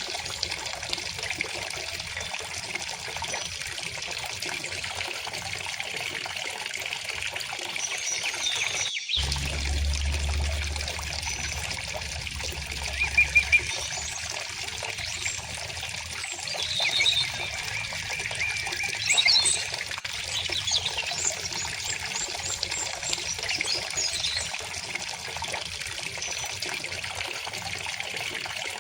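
A river flowing steadily with a trickling, pouring sound, while small birds chirp now and then above it. The sound drops out for a moment about nine seconds in, and a low rumble follows for a few seconds.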